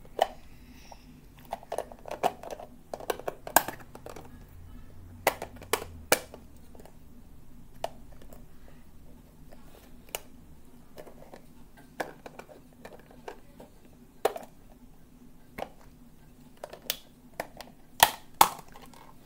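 Irregular sharp clicks, taps and crackles of a small plastic lidded container being handled up close, loudest in a few clusters near the start and again near the end.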